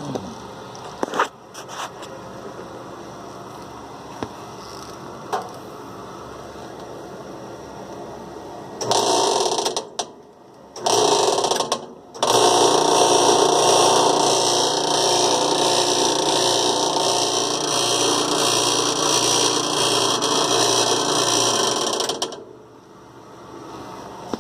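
Agitator washing machine running with a loud rattling noise, which sets in about nine seconds in, cuts out briefly twice, then runs steadily until it stops near the end. The rattle persists on all cycles although the tub bearing and seals were newly replaced.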